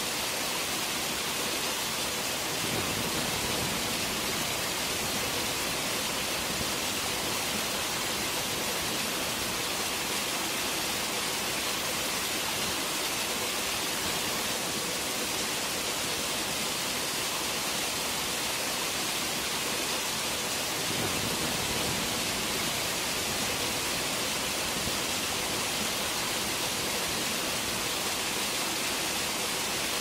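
Steady, even rushing hiss of falling water from a waterfall, unbroken throughout, swelling slightly in the low end twice.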